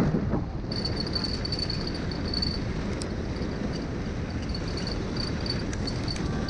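Steady rush of wind and snow noise on an action camera moving fast behind a running sled-dog team on a groomed snow trail. A faint, high, chirp-like pulse repeats over it from about a second in.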